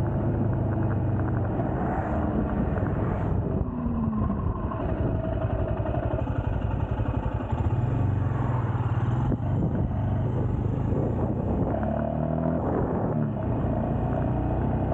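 Royal Enfield Scram 411's single-cylinder engine running steadily under way at road speed, its note dipping and picking up again a couple of times.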